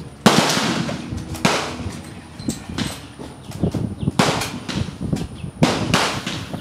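Gunshots from other shooters on the firing line: four loud shots and several fainter ones, each ringing out for about a second.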